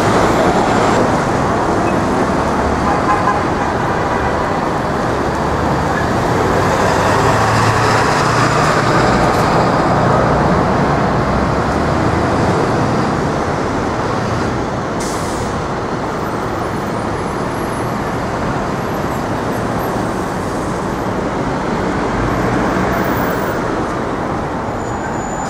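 Busy city street traffic: engines and tyres of passing cars and heavier vehicles, with a low engine hum swelling in the first half and a short hiss near the middle.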